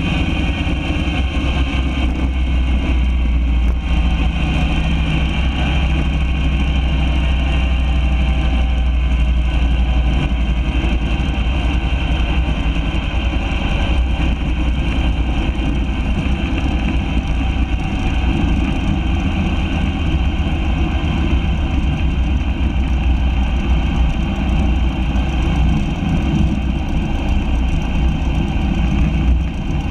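Cessna 150's four-cylinder Continental O-200 engine and propeller running as the plane rolls out on the runway after landing, heard from beside the main landing gear over a deep steady rumble. The engine note drifts slowly lower over the first several seconds.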